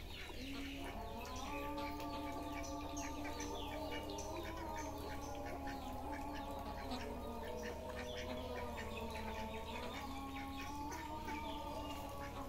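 Ducks quacking, with short repeated calls, over a backdrop of long held tones that step in pitch every second or two.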